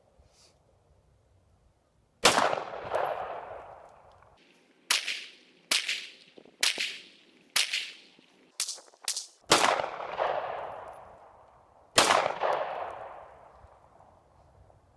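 Nine semi-automatic AR-style rifle shots fired at a target, spaced irregularly with a quick run of three about two thirds of the way through. Each shot is followed by a long, fading echo.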